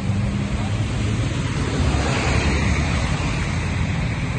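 Heavy rain falling steadily, with wind rumbling on the microphone.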